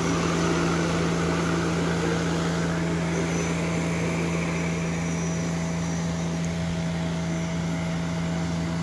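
Large multirotor agricultural spray drone hovering low, its propellers giving a steady, even hum over the rush of their downwash, which is blowing rainwater off the lodged rice to dry it.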